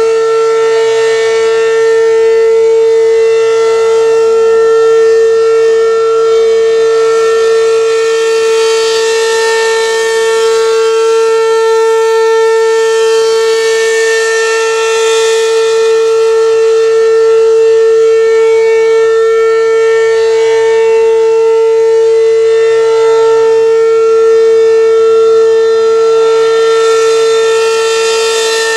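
American Signal ASC RM-127 outdoor warning siren sounding a steady tone during its monthly test, held at one pitch with a full set of overtones that brighten and fade now and then.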